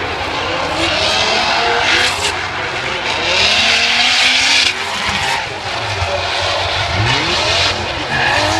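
Two drift cars sliding in tandem, their engines revving up and down over and over while the rear tyres squeal in long stretches as they spin through the corner.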